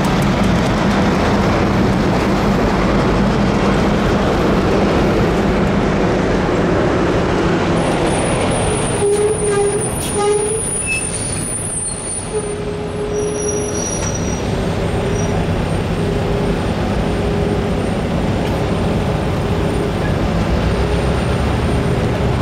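Diesel engine of a Union Pacific GP38N locomotive running steadily as the engine and its tank cars move slowly along the track. It gets a little quieter in the middle, with a few brief, faint high squeals, then builds again as the locomotive comes closer.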